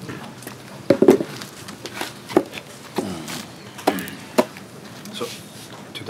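A handful of sharp knocks and clicks, about five spread irregularly, with brief soft voice sounds between them.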